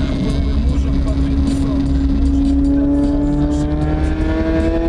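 Lada Priora's four-cylinder engine running with the muffler removed, a very loud exhaust drone. It holds steady for about two seconds, then its pitch climbs slowly as the car accelerates.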